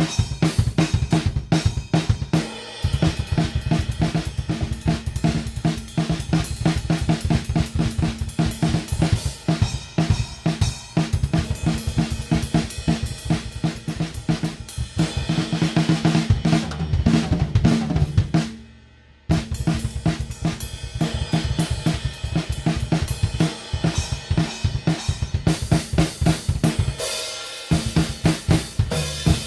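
Drum kit played fast and busily: rapid snare and bass drum strokes under hi-hats and crash cymbals. About two-thirds of the way through the sound fades and cuts out for a moment, then the playing starts again.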